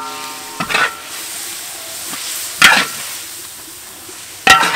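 Metal spatula stirring chopped pork and green herb paste in a wok: three sharp scrapes and knocks against the metal, about two seconds apart, each leaving the wok ringing briefly, over a steady sizzle of frying.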